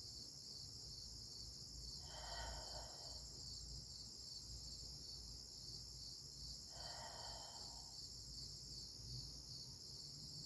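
Steady high-pitched chorus of crickets and other insects, with a short rasping call twice, about two seconds in and again about five seconds later.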